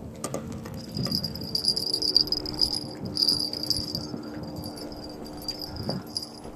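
A high-pitched insect trill that starts about a second in and keeps going, over low rumbling noise and a few knocks.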